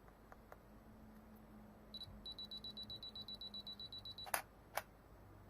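Canon DSLR self-timer beeping, one short beep then a fast run of even high beeps for about two seconds as it counts down after the wireless remote is pressed, then the shutter fires with two sharp clicks about half a second apart.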